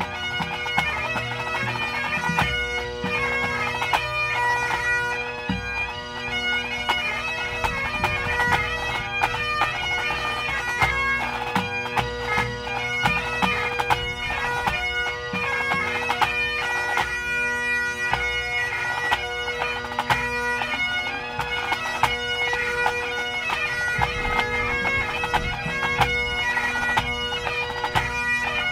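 A full pipe band playing: Great Highland bagpipes with steady drones under the chanter melody, backed by the band's snare, tenor and bass drums.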